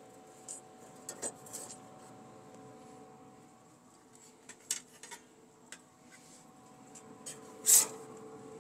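Metal spatula clicking and scraping against a pellet grill's grates and a sheet pan, a few scattered sharp clicks with the loudest near the end, over the faint steady hum of the grill's fan.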